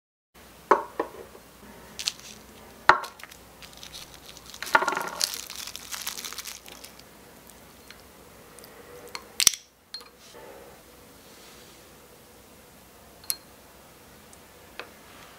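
Small-scale kitchen handling sounds: several sharp clinks of tiny glassware and utensils, with a rustling stretch in the middle as raw beef pieces are tipped from a small plastic tub into a miniature glass bowl and stirred with a small wooden spoon. A few faint ticks follow near the end.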